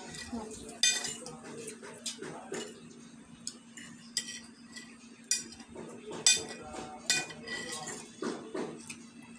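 Forks and spoons clinking and scraping on plates while eating, in irregular sharp clinks with the loudest about six seconds in, over a faint steady low hum.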